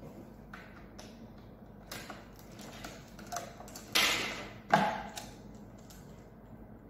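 Light clicks of a small key and lock on a parking barrier's casing, then two loud clacks about four and five seconds in, the second with a brief ring, as the casing is unlatched and its lid swung open.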